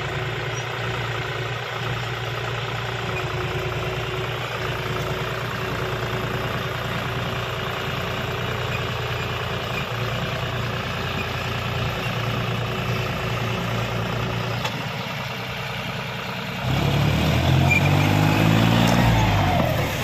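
John Deere 5050D tractor's three-cylinder diesel engine running steadily under load as the rear wheels dig into sand. About three seconds before the end it gets suddenly louder, and its pitch rises and falls as it is revved.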